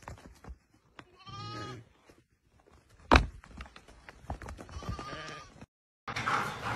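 Sheep bleating: a short bleat about a second in and a fainter one near five seconds, with a single sharp knock about three seconds in and scattered small clicks.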